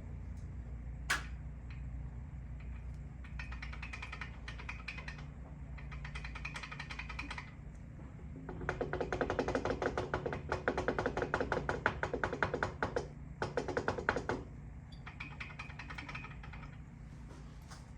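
Bursts of rapid, even clicking, the longest and loudest lasting about six seconds in the middle, over a steady low hum.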